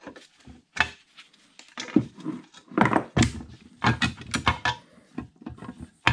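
Metal parts knocking and scraping: a rusty speed change plate being worked loose and lifted out of a Bridgeport variable speed head's housing, in a run of irregular clunks with a cluster of louder knocks in the middle.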